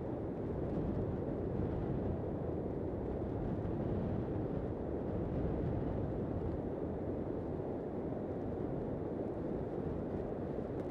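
Strong wind buffeting the microphone in a steady rumble over the rush of breaking surf, with no separate sounds standing out.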